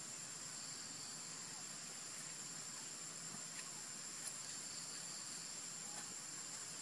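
Steady high-pitched drone of insects over a low outdoor hiss, with a couple of faint clicks around the middle.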